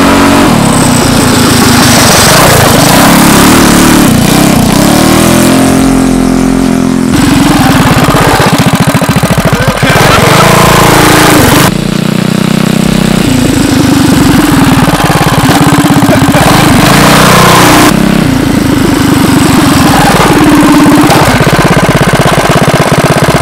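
Mega Moto 80 mini bike's small four-stroke single-cylinder engine running hard on a ride, revving up and dropping back again and again as the rider speeds up and brakes. The sound breaks off abruptly and resumes several times.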